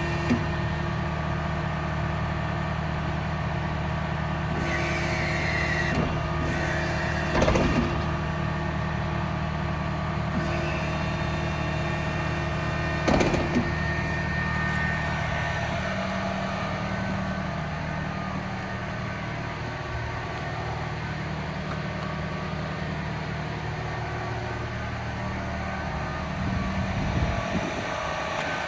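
Massey Ferguson RB3130F Protec baler-wrapper working behind a tractor: a steady engine and machinery drone, with a few sharp knocks, one about 7 seconds in and another about 13 seconds in. The drone shifts in tone at about 16 seconds.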